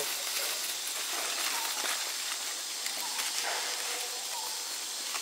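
Steady high-pitched hiss of outdoor ambience, with a few faint short chirps.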